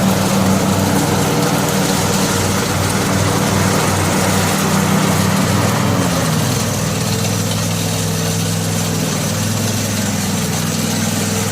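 The Husky lawn tractor's 18 hp Kawasaki twin-cylinder engine running steadily while mowing. Its note drops slightly about six seconds in.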